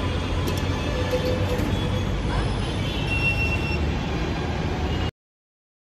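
Metro station ambience: the steady low rumble of a metro train with a few short high tones and faint voices, cutting off suddenly about five seconds in.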